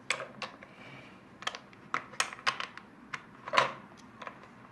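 Small plastic building bricks clicking and clattering as they are picked out and pressed into place. The clicks are irregular and light, with the loudest about three and a half seconds in.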